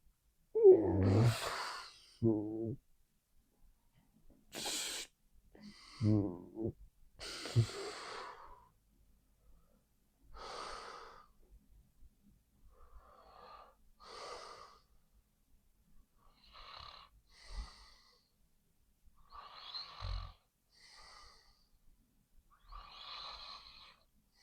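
A sleeping person snoring. In the first seven seconds or so come a few loud snores with a wavering pitch, followed by softer, breathy snores about every one to two seconds.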